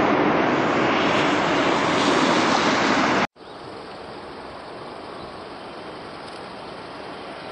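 Loud, steady jet noise from an MD-11 trijet's engines as it passes low overhead on landing, cut off abruptly about three seconds in. It is followed by a much quieter, steady distant jet sound from a twin-engine widebody airliner on approach.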